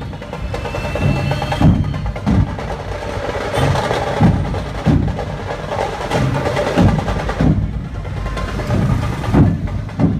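A dhol-tasha drum troupe playing: large dhol drums beaten in a steady, heavy beat, about three strokes every two seconds, with sharper, quicker percussion over them.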